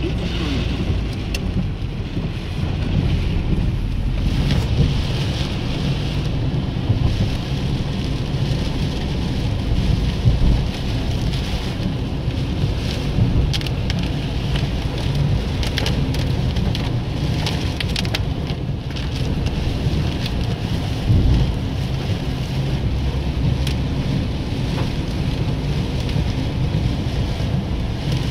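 Heavy rain hitting a moving car's roof and windscreen, heard from inside the cabin, with scattered sharp raindrop ticks. Underneath is the steady low rumble of the car and its tyres on the wet road.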